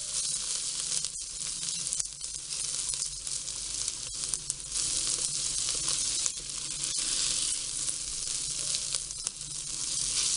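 Chopped onion, ginger and garlic sizzling as they sauté in oil in a glass Vision pot, a steady frying hiss, with a spatula stirring them and making a few light ticks against the glass.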